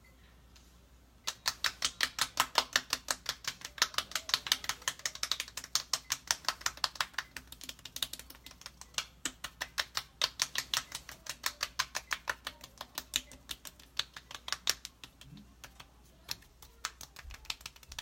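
Rapid, light slaps of palms and fingertips patting on facial skin as skincare product is patted in, about five pats a second. The patting eases off briefly near the end, then starts again more softly.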